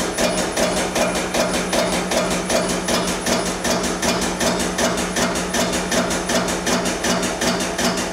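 Air-driven liquid pump cycling fast, a steady run of about three to four strokes a second over a constant hum, as it pressurizes a water-filled pipe sample for a burst test.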